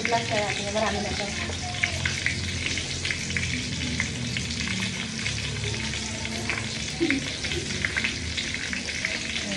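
Breaded pork cutlets deep-frying in hot oil: a steady sizzle full of small popping crackles, the cutlets cooking toward golden brown.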